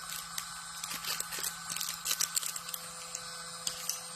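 The motor of a fully automatic smart lock running as it unlocks after an IC card is read: a steady electric whir with a few irregular clicks and ticks over it.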